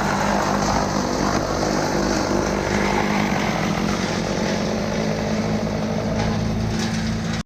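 Chainsaw engine running at a steady high speed, held at full throttle, then stopping abruptly at the very end.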